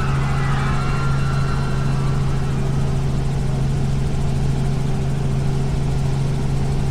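A steady, unbroken engine drone with a strong low hum, like a motor running at constant speed.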